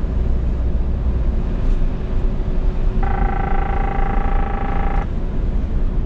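Scania S500 truck cab noise while driving: a steady low drone of engine and road. About halfway through, a steady pitched tone sounds for about two seconds and then stops.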